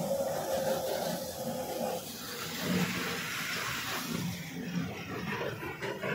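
Jet airliner passing overhead: a steady engine whine that slides slowly lower for about two seconds, then gives way to a broad rushing noise.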